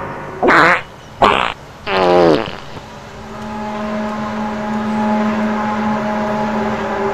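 The so-called strange sound in the sky: three loud, short horn-like tonal blasts in the first two and a half seconds, the last one sliding down in pitch, followed by a steady, lower droning tone with overtones.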